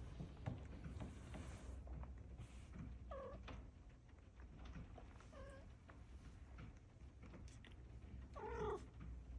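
Maine Coon cat meowing three times in short calls that drop in pitch: one about three seconds in, a brief one a couple of seconds later, and the loudest near the end.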